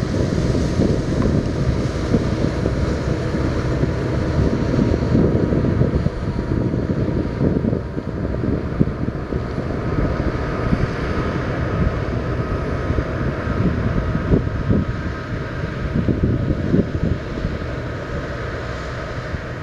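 Harvest machinery running steadily with a faint steady whine, under heavy wind buffeting on the microphone.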